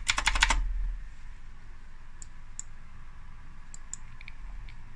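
Computer keyboard clicking: a fast run of clicks in the first half second, then a few scattered single clicks.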